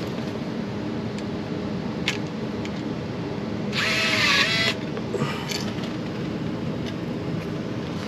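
A power drill runs in one short burst of about a second near the middle, its motor pitch rising and then falling, with a few sharp clicks around it and a steady low hum underneath.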